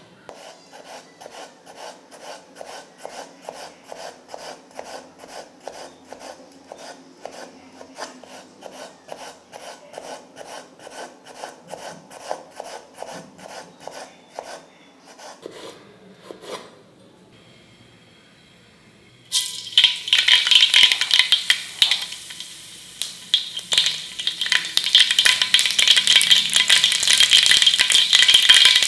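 Rhythmic stirring strokes in a pot, about two or three a second, then a knock and a short lull. About two thirds of the way in, loud sizzling and spattering starts as food frying in hot oil.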